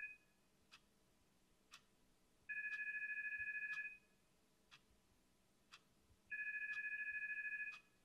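Electronic telephone ringer trilling on two steady tones, each ring lasting about a second and a half and repeating a little under four seconds apart, the tail of one ring at the start and two full rings after. A clock ticks faintly about once a second underneath.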